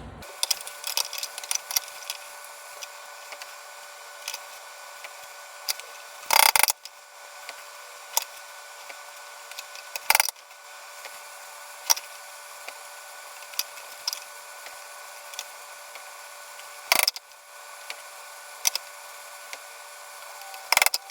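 Wooden barrel-head pieces knocking and clicking as they are handled and fitted during a glue-up, with four louder knocks spread through, over a steady shop hum.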